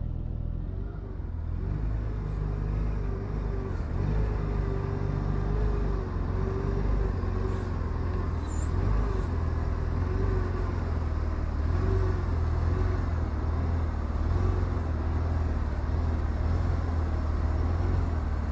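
Semi truck's engine running, a steady low rumble with a wavering drone above it.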